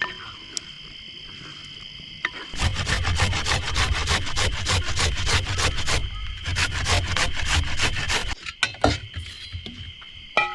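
Hand saw cutting through wood in quick back-and-forth strokes, about five a second, for around six seconds and then stopping, followed by a few light knocks.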